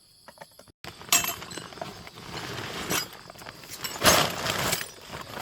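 Hard objects clattering and clinking as they are handled, in several sudden bursts; the loudest come about a second in and about four seconds in. Insects chirp steadily until the sound breaks off abruptly just before the clatter begins.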